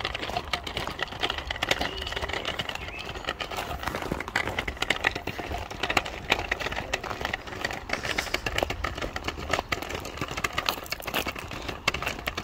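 Measuring wheel rolling over loose gravel, with footsteps crunching on the gravel: a dense, irregular run of crunches and clicks.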